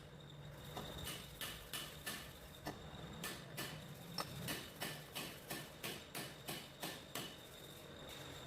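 A steady run of light hammer taps, about three a second, on tractor axle parts; they stop about a second before the end. A low steady hum runs underneath.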